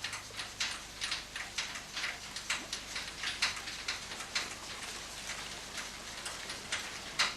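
Irregular sharp taps and clicks, about two to three a second, over a faint hiss, with one louder tap near the end.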